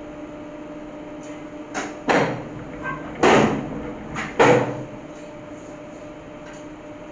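Steady hum of a label press, broken in the middle by three loud clattering clunks as its metal bed is swung open and shut.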